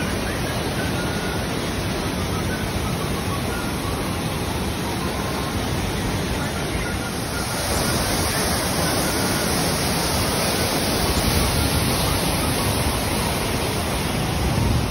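Waterfall rushing: water cascading over boulders, a loud, steady rush of water that grows louder and brighter about halfway through.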